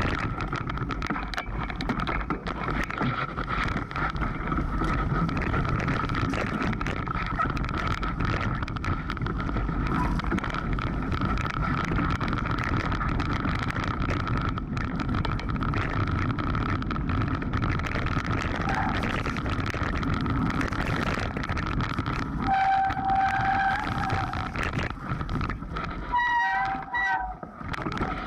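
Mountain bike ridden fast down rocky singletrack: tyres rattling and crunching over loose stones, the bike clattering over the bumps, and wind on the microphone. A few short squeals come near the end.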